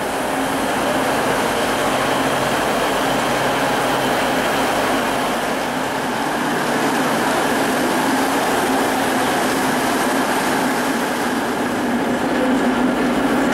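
Steady running noise of a passenger train, an even noise with a faint low hum and no clear rhythm.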